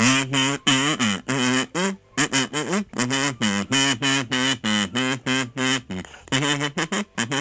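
A tune played on a kazoo: a buzzing melody of short notes rising and falling in pitch, with brief pauses between phrases.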